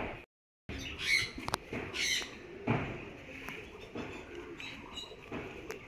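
Short, high bird squawks and chirps over a steady background, with small clicks between them. The sound drops out briefly just after the start.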